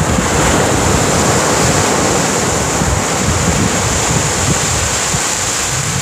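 Small ocean waves breaking and washing up a pebbly beach: a steady rushing of surf, with wind buffeting the microphone as a low rumble.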